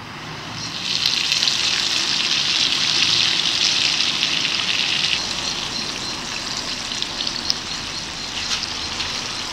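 Hot oil sizzling as a flour-battered whole onion deep-fries in a small saucepan. The sizzle swells about a second in as the onion goes into the oil, then eases a little after the halfway point, with a few sharp pops and crackles.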